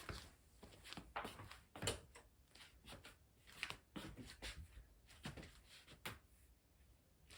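Faint, irregular clicks and knocks, about a dozen scattered through the few seconds, over a low steady hum: small objects being handled and set down.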